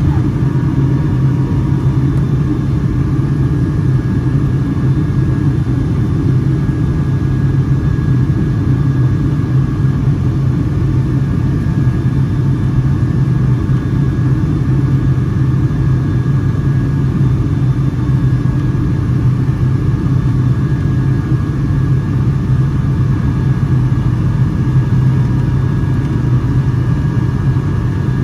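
Steady cabin noise inside a Boeing 757-200: a constant drone of engines and airflow with a strong low hum, unchanging throughout.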